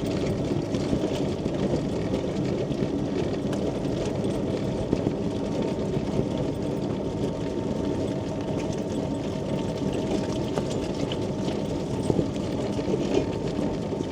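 Quingo Toura Mk2 mobility scooter running steadily along the pavement: a continuous low drive noise with a thin, steady whine over it.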